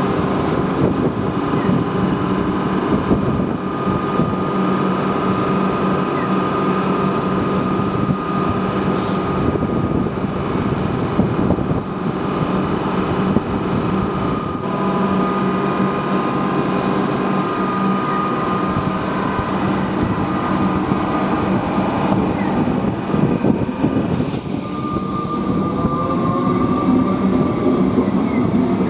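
Comeng electric suburban trains running at a station platform: a steady electrical hum and whine over rolling noise. Near the end a whine rises in pitch as one train accelerates away.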